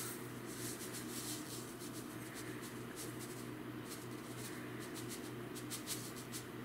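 Dry breadcrumbs poured slowly from a canister into a Pyrex glass measuring cup: a soft, grainy patter of many small ticks, over a steady low hum.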